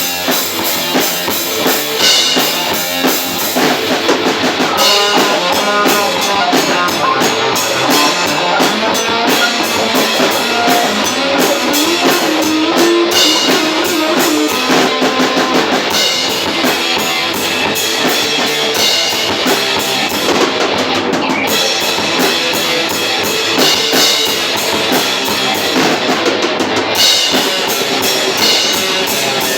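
Experimental metal band playing live at rehearsal: a drum kit with kick drum and cymbals driving a steady beat under electric guitar and bass.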